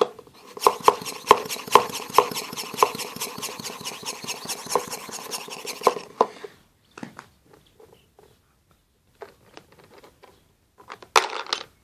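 A hand vacuum pump is worked on the valve of a plastic airtight container's lid, drawing the air out. It makes a steady hiss with a fast rattle and sharper clicks, then stops about six seconds in. After a few small handling clicks, a sharp clatter near the end is likely the iron nail falling inside the evacuated container.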